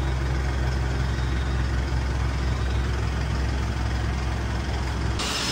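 Isuzu Elf NLR Euro 4 minibus's diesel engine idling steadily with a low, even rumble. The sound cuts off suddenly near the end.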